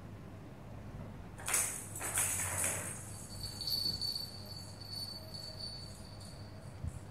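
Small bell in a cat's toy ball jingling as the ball is batted about, starting about a second and a half in and lasting about a second and a half, then a faint steady ringing for a few seconds.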